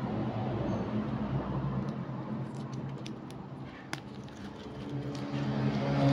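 Clear plastic packaging rustling and small clicks as a massager's adhesive electrode pads and lead wires are handled, over a steady low hum that grows louder near the end.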